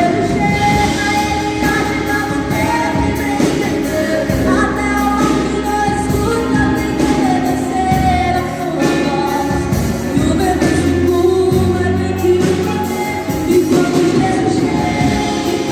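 A gospel song playing: a singer's voice over a full backing band with bass and drums.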